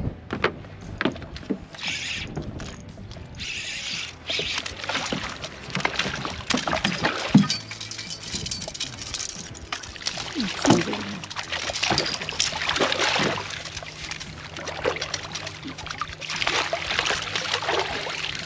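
Water lapping and splashing against a boat's hull, with irregular knocks and clatter, as a hooked fish is brought alongside. It thrashes into a landing net near the end. A faint steady low hum comes in about two-thirds of the way through.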